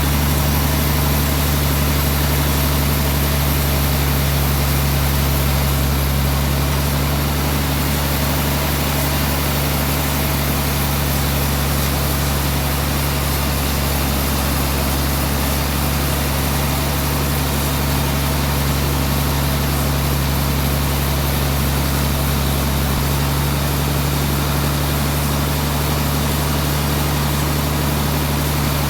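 Sawmill machinery running with a steady, loud low drone that does not change.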